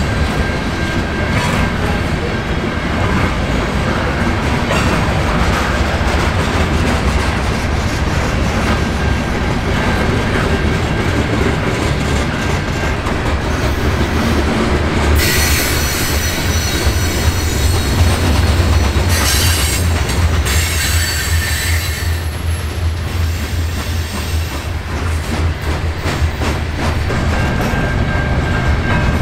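Freight train of covered hopper cars rolling past, steel wheels rumbling and clattering over the rail joints. About halfway through come two spells of high wheel squeal, a few seconds each.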